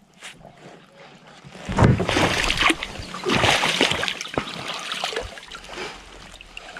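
Water splashing and sloshing in an irregular run of strokes, loud for about three seconds from a couple of seconds in, then dying away.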